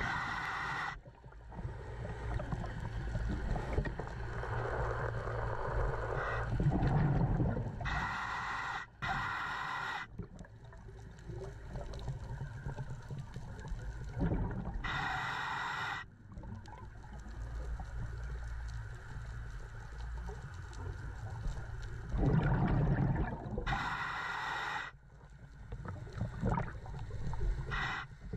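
Scuba diver breathing through a regulator, heard underwater: a short hiss on each inhale, repeating every several seconds, and a low bubbling rumble of exhaled air in between.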